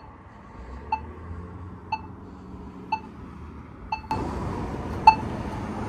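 Polara EZ Communicator crosswalk pushbutton's locator tone: a short beeping tick repeating about once a second, five times, during the wait phase. About four seconds in, steady traffic noise rises.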